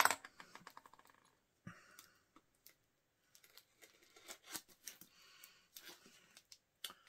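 Packaging being torn open and handled by hand: a quick run of ripping clicks in the first second, then scattered clicks, rustles and crinkles.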